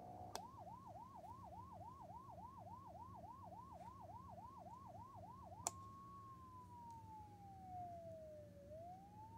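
Warn Alert model 55 electronic siren sounding its yelp tone: a fast rising-and-falling sweep, about three times a second. After a click a little past halfway it changes to the wail, a slow tone that falls for about three seconds and then climbs again near the end.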